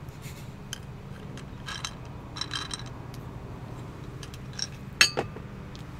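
Faint scattered clicks and rustles of handling over a steady low hum, with one sharper click about five seconds in.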